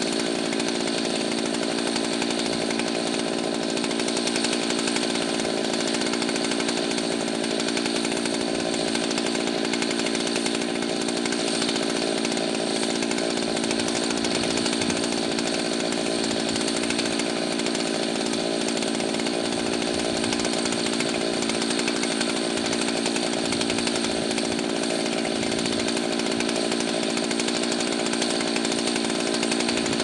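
Two-stroke chainsaw engine running steadily at one constant speed, not revving or cutting.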